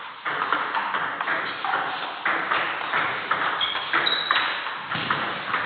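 Table tennis doubles rally: the ball clicks off the bats and bounces on the table in a quick, uneven run of sharp hits, several a second.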